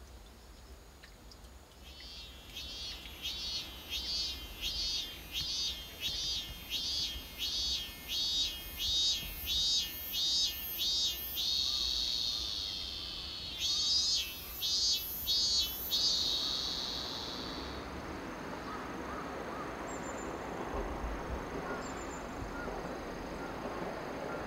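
A cicada singing: a long run of rapid, evenly repeated phrases, about two a second, breaks into a steady buzz, then a few more phrases and a second buzz that fades out about two-thirds of the way through. A soft, steady rushing noise follows, with two faint high chirps.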